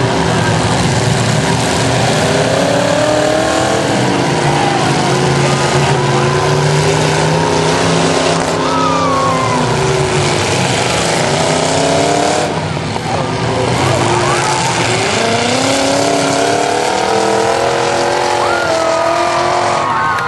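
Several demolition-derby car engines revving up and down over one another, loud and continuous.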